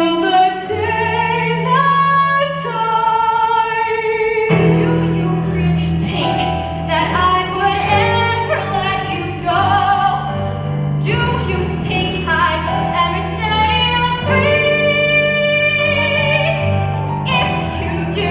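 Women's show choir singing in harmony over a live band, with held chords that change every second or two and a steady bass line underneath.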